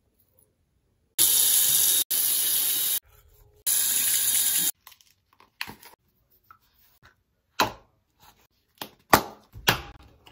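Water running from a tap in two short spells, each turned on and cut off abruptly, followed by a few light knocks and clicks.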